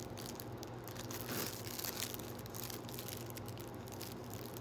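Packaging crinkling faintly as merchandise and sticker sheets are handled, with a few light ticks, over a steady low electrical hum.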